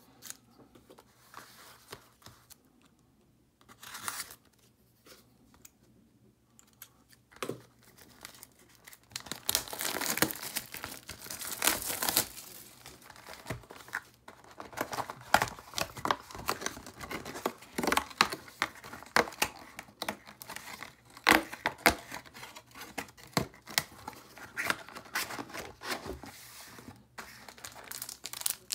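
Plastic shrink wrap on a trading card box tearing and crinkling, with cardboard rustling as the box is opened and its card packs handled. The first few seconds are mostly quiet with a few light knocks. From about nine seconds in there is steady crinkling and tearing, full of sharp crackles.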